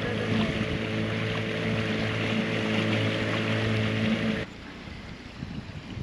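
Outboard motor of a motorboat running at a steady pitch, with water and wind hiss. It cuts off abruptly about four and a half seconds in, leaving wind on the microphone.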